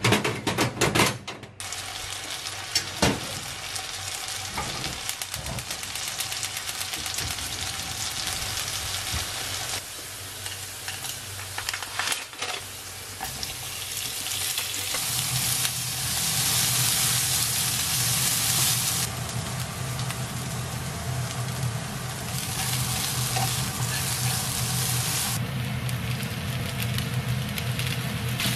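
Food sizzling in a frying pan on a gas hob as garlic and onion are added and stirred, growing louder about halfway through. A few sharp metallic clicks at the start come from burner parts being set on the hob, and a low hum joins about halfway.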